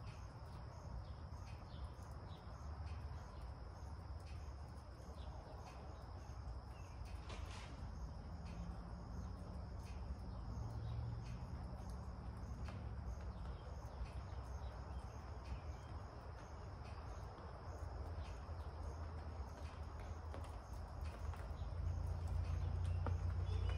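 Quiet open-air ambience: a steady high-pitched drone, like insects, over a low rumble, with a few faint clicks.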